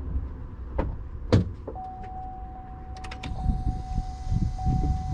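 A few sharp clicks as the car's ignition is switched on, then a steady electrical tone that holds on.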